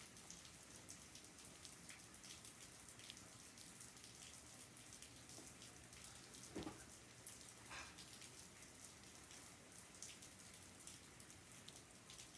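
Light rain falling, faint, with many scattered drop ticks and one louder drip a little past halfway.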